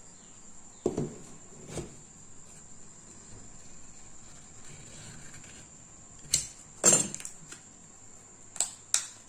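Small cardboard and paper memory-card package being handled and opened by hand: a few sharp clicks and crinkles of card and paper, the loudest and most crackly about seven seconds in.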